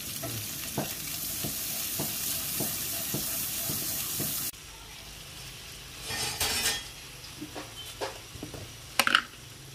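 Garlic butter with shrimp roe sizzling in a pan, with light regular scrapes of a utensil. The sizzle cuts off abruptly about halfway through, leaving a few clatters and clinks of utensils and cookware, the sharpest near the end.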